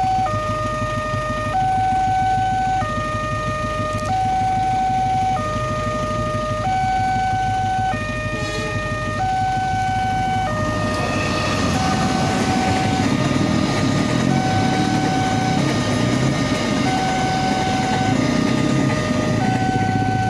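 Railway level-crossing warning alarm sounding, an electronic two-tone signal that alternates between a higher and a lower tone about every 1.3 seconds, warning that a train is approaching. From about eleven seconds in, a louder rumbling noise builds up underneath it.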